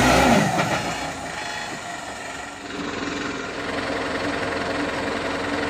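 Heavy truck's diesel engine idling steadily.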